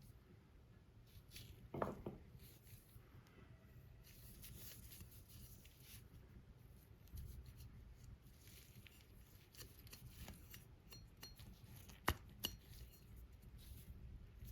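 Quiet handling noises of small hard objects, with a sharp click about two seconds in and another near the end.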